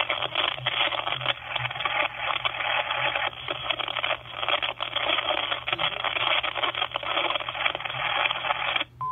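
A recorded phone message of loud, steady static-like hiss over the telephone line, played back from an answering machine, ending with a short beep near the end.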